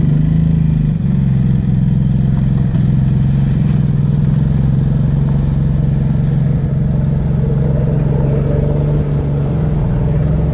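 A small engine running steadily, holding a constant low pitch.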